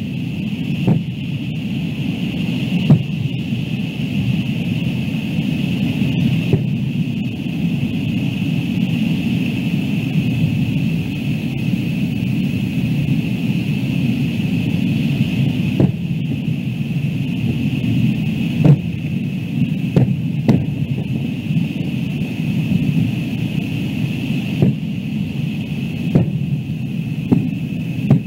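Fireworks shells bursting at a distance: scattered sharp bangs, about ten of them, some close together, over a steady low rumble and hiss.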